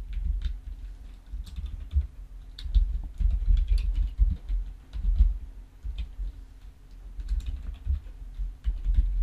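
Typing on a computer keyboard: a run of irregular key clicks with dull low thumps under them and a faint steady hum behind.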